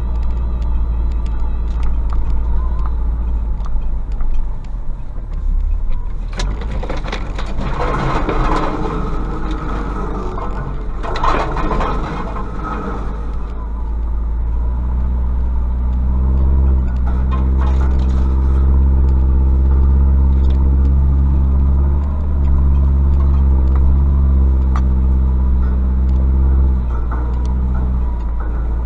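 Ford Ranger's 12-valve WLT turbodiesel engine running at low, steady revs as the truck creeps along a lane, with branches scraping along the bodywork for several seconds in the first half. In the second half the engine note grows louder and steadier.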